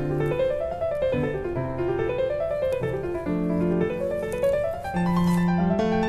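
Background piano music: runs of notes stepping up and down about once a second over held lower notes.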